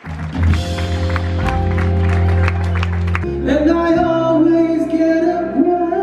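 Live band playing held chords with regular drum hits; about three and a half seconds in a man starts singing, holding long wavering notes over the band.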